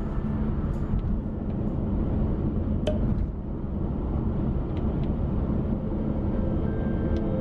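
A car being driven: a steady low rumble of road and engine noise, with one sharp click about three seconds in.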